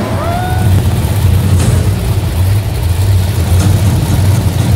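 Monster truck engines idling with a steady deep rumble. A short rising whistle sounds about a quarter second in.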